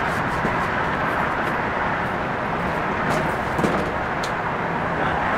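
Steady outdoor rumble and hiss, with a few light knocks and clatters about three to four seconds in as a heavy animatronic figure is shifted about in a box truck's cargo area.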